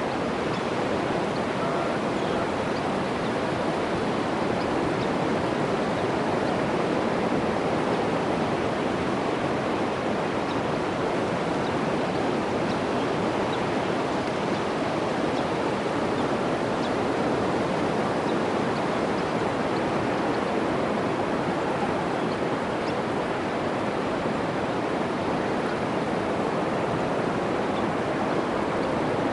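Ocean surf breaking on a sandy beach: a steady, even rush of waves with no single wave standing out.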